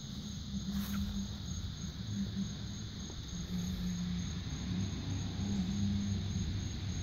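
Night insects trilling steadily, a fast, even pulsing chirr that does not let up, over an uneven low hum.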